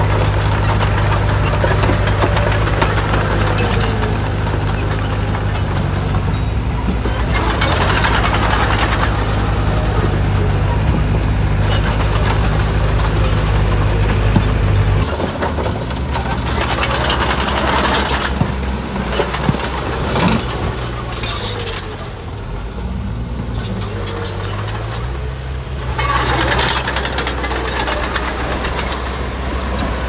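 Heavy diesel engine of construction machinery running steadily, then changing pitch and wavering from about halfway through as it works under varying load. Three bursts of noise come and go over it.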